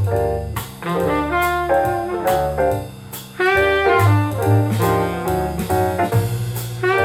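Jazz music with a horn melody over bass and drums, played back through bookshelf speakers for a listening comparison. The music drops briefly quieter about three seconds in.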